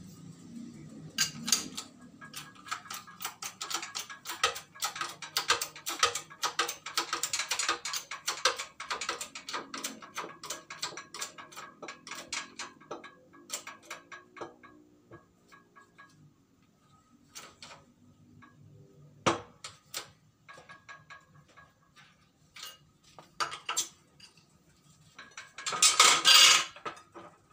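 Hand-pumped hydraulic bottle-jack shop press pressing a Honda Beat crankshaft and connecting rod together: rapid metallic clicking and clanking as the jack is worked, dense at first and then sparser. A louder metal clatter comes twice near the end.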